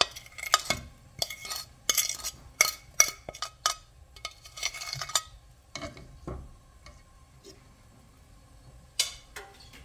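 Utensils scraping and clinking against a bowl and pot as mashed cooked beans are tipped into hot sugar syrup and stirred in with a spatula: a busy run of clinks and scrapes for about five seconds, then a few scattered knocks.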